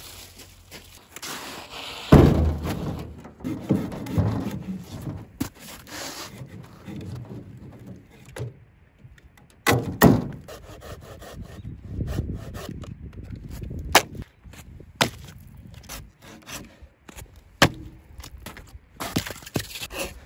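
Dry firewood being broken and cut by hand: irregular sharp cracks and knocks of wood, the heaviest about two seconds in, with rubbing and scraping of wood between them.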